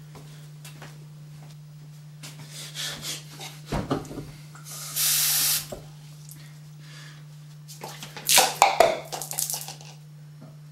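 Kitchen sounds: knocks and clatter of cups, a faucet run briefly about five seconds in, then near the end a plastic cup hitting the floor and clattering several times. A steady low electrical hum runs underneath.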